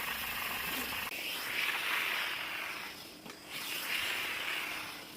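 Bissell steam cleaner running with a steady hiss of steam, swelling twice.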